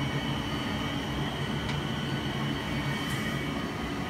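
TBH fume extraction unit of a laser cutter running steadily after the cut, a continuous fan hum with a faint whine, with two faint clicks about two and three seconds in.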